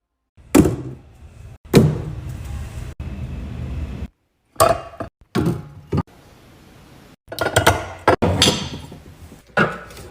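A series of hard knocks and thumps, about seven, some with a short clattering tail, separated by sudden drops to silence.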